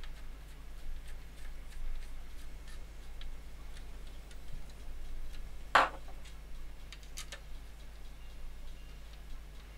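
Small Torx screwdriver turning tiny screws into a circuit board, making scattered faint ticks and clicks, with one sharp, louder click about six seconds in. A steady low hum runs underneath.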